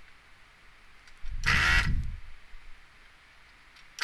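Hakko 808 desoldering gun's built-in vacuum pump switched on by the trigger for about a second, sucking molten solder off an IC pin. It gives a low buzz and a loud hiss of air through the nozzle with a falling whistle. It starts again for the next joint just before the end.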